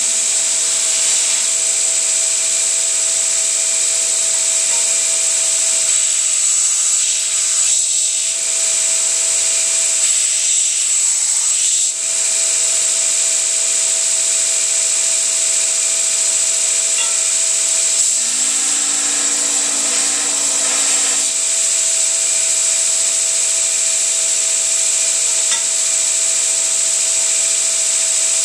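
A 2x72-inch belt grinder running steadily, with a continuous high whine over the belt noise.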